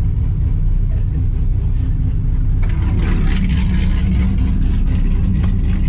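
The LSA-swapped 1972 Chevrolet Monte Carlo's supercharged V8 running with a steady low rumble, heard from inside the car. A rushing hiss joins about halfway in.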